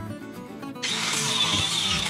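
Handheld angle grinder cutting into a seized steel mounting bolt, a loud steady grinding hiss that starts a little under a second in.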